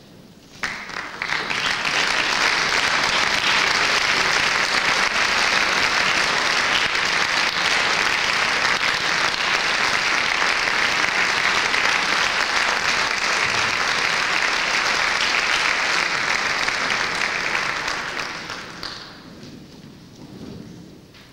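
Audience applauding, starting abruptly about half a second in and dying away over the last few seconds.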